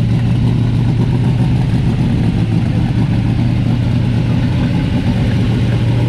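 Chevrolet Monte Carlo's engine idling loudly and steadily with a deep, pulsing rumble.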